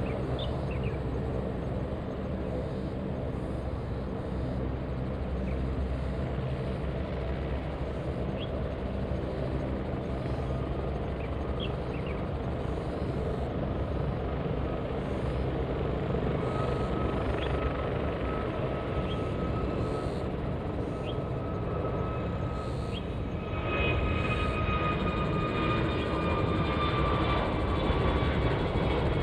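Airbus A321neo jet taking off: a steady low engine rumble with a thin fan whine that grows. Near the end the sound becomes louder and the whine tones slowly fall in pitch as the airliner lifts off and climbs.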